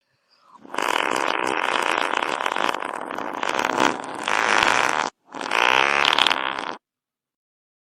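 A long fart sound, running for about six seconds with a short break just after five seconds and a second, shorter stretch after it.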